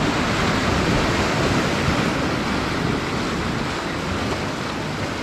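Sea surf washing and breaking over the rocks of a jetty, a steady rush of white water.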